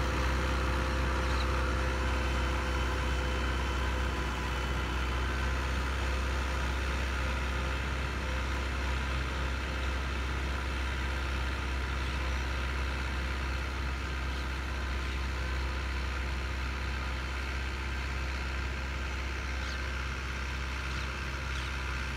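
Tractor engine running steadily under load as it pulls a cotton planter through the field, fading slightly as it moves away.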